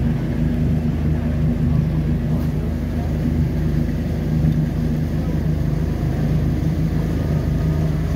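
A tour boat's motor running steadily as the boat moves across the lake, a low, even drone.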